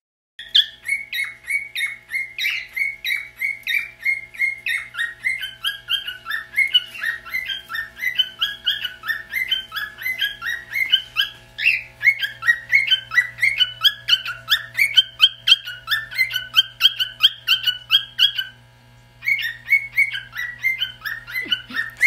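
Cockatiel singing: a fast, rhythmic run of chirpy whistled notes that hop back and forth between two pitches, with a brief pause near the end.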